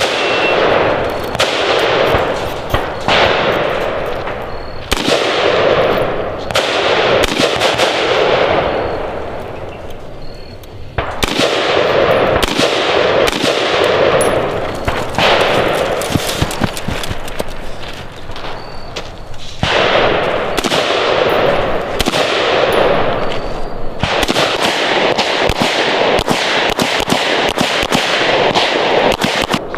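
Rapid semi-automatic fire from AR-style carbines in quick strings, each shot echoing, with short pauses between strings. Occasional metallic pings of steel targets being hit.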